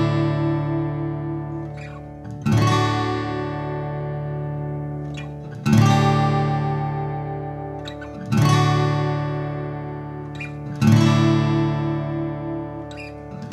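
Acoustic guitar in DADGAD tuning strummed slowly: a chord rings from the start, then four fresh strums come about every two and a half to three seconds, each left to ring out. The two-finger chord shape moves up and down the fretboard, so the chord changes with each strum while the low notes keep sounding underneath.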